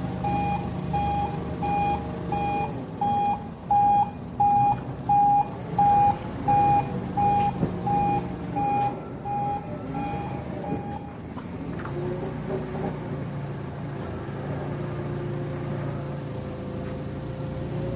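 Vehicle reversing alarm beeping at a steady pace, about one and a half beeps a second, stopping about eleven seconds in, over the steady hum of a running engine.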